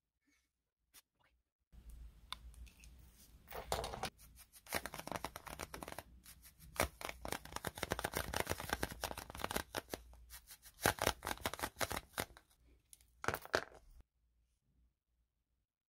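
Clear nano tape (double-sided gel tape) crackling and clicking as the sticky bubble is pressed and handled between the fingers. The crackle starts about two seconds in and stops about two seconds before the end.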